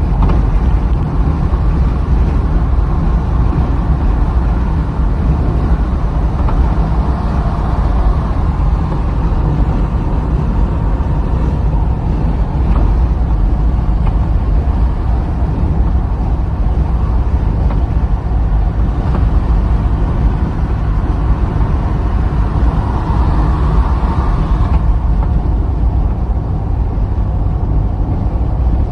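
Car on the move: a steady, loud low rumble of road and running noise, with a mid-pitched layer that swells a couple of times. This is the noise being checked for an abnormal sound from the left front suspension.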